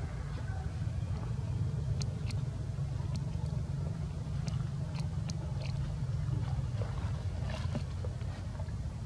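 Steady low rumble, with a few faint sharp clicks scattered through it.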